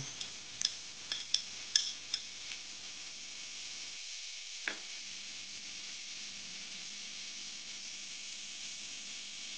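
Sliced bell peppers and onions tipped into hot oil and sauce in a non-stick frying pan. A few sharp clinks come in the first two seconds as the bowl empties, then a steady sizzle as the vegetables fry.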